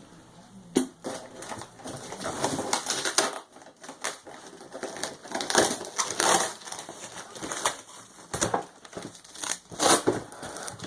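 Cardboard shipping box being torn open by hand, with irregular ripping and crunching noises, loudest about six seconds in and again near the end.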